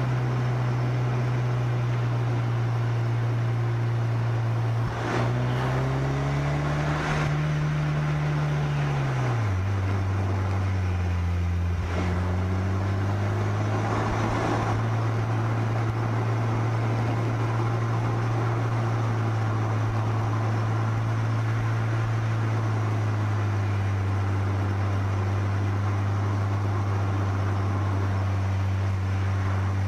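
Car engine running at steady cruising revs over a constant rush of wind and road noise, picked up by a camera on the car's bonnet. About five seconds in the engine note dips, then climbs for a few seconds and drops back lower near ten seconds, after which it holds steady.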